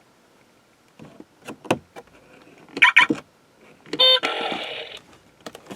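Electronic sound effects from a 2010 Hasbro My Little Pony Pinkie Pie remote-control car toy: a few clicks, a short pitched toot near three seconds in, then a louder horn-like blast about four seconds in that lasts around a second.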